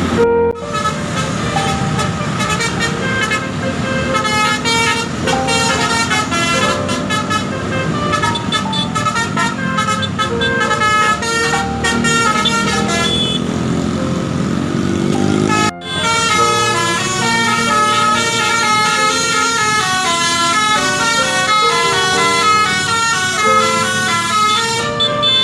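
Bus telolet basuri horn, a set of multi-tone air horns, playing a fast melody note after note. It breaks off briefly about 16 seconds in, then plays another tune.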